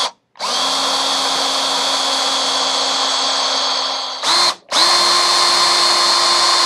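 Power drill boring into the head of a trigger-guard rivet on a shotgun receiver, running at a steady whine. It stops and restarts briefly near the start and twice about four seconds in.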